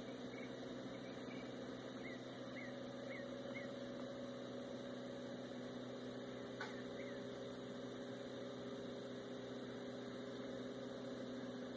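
An engine idling steadily, a low hum with a few steady tones in it. A few short high chirps sound about two to three seconds in and again partway through, and there is one faint click.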